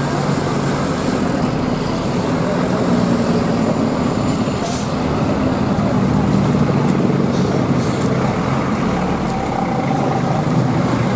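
Heavy diesel coach engine running as the bus rolls slowly past, with short hisses of released air from its brakes about five and eight seconds in.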